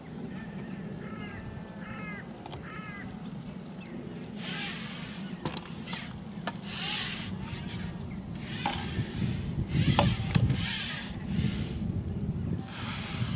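A carbon fishing pole being pushed out hand over hand: a series of short sliding, rubbing swishes as the pole runs through the hands, starting about four seconds in, with a few light knocks among them.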